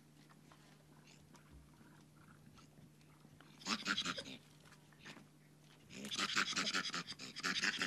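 Harsh, rapid animal calls in two bursts, a short one about halfway through and a longer one near the end, over a faint steady hum.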